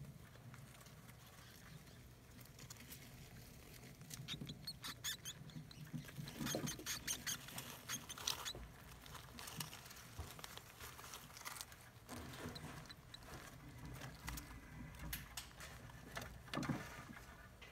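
African soft-furred rats moving about in shredded-newspaper nest bedding: faint rustling and small crackles and scratches of paper, busiest from about four to nine seconds in.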